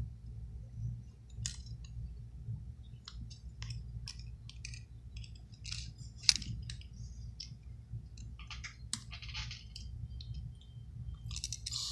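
Light, scattered clicks and short scrapes of small repair tools working on an opened iPhone 6 Plus, over a steady low hum.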